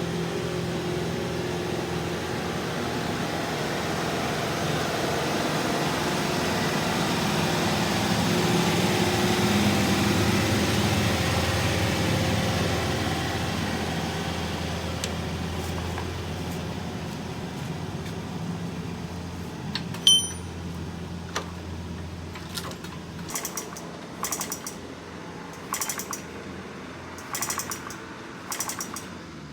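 A motor's steady hum swells and then fades away over about twenty seconds. It is followed by a single sharp metallic ping and then a run of short hissing bursts about every second and a half.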